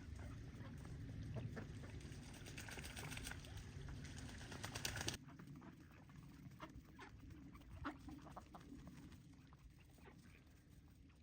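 Ducks splashing and bathing in water, with soft calls from the flock. About five seconds in the splashing cuts off suddenly, leaving a quieter background with short, scattered bird calls.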